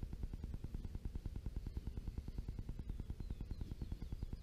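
Low rumble of wind on the camera microphone, pulsing several times a second, with faint high bird chirps about three seconds in.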